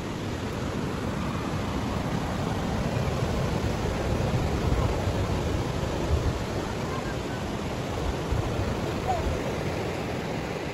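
Steady wash of surf breaking on a sandy beach, with wind gusting on the microphone as low rumbles.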